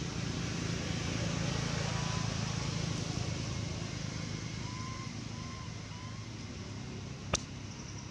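Steady outdoor background rumble with a low hum, with a few faint short chirps in the second half and one sharp click about seven seconds in.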